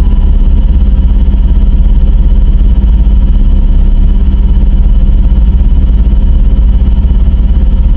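Loud, distorted synthesized alarm drone of a mock emergency alert broadcast: a steady, heavy low rumble with faint high tones held above it, unchanging throughout.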